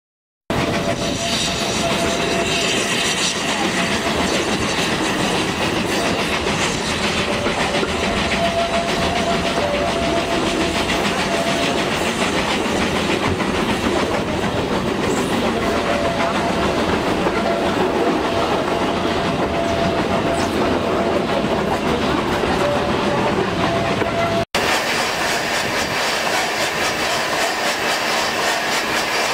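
Furka Steam Railway steam rack train running, heard from an open carriage window: a steady rumble and clatter of wheels on the track, with a faint thin whine that comes and goes. The sound cuts in after a moment of silence and carries on much the same after a brief break about 24 seconds in.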